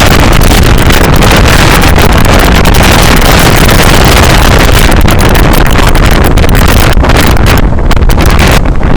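Heavy wind buffeting the microphone on the roof of a moving bus, very loud and continuous, with a rumble that drowns out everything else.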